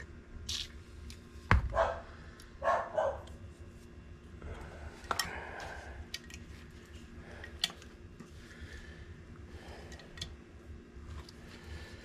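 Metal clicks and knocks from a Honda Helix scooter's front brake caliper being squeezed with pliers and worked onto the disc by hand, with a sharp click about one and a half seconds in and fainter clicks later. A dog barks twice near three seconds in.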